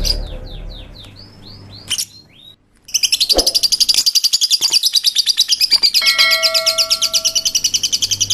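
Small birds chirping: first a run of quick downward-sliding chirps, then, about three seconds in, a dense, fast chirping chorus with a brief held note partway through.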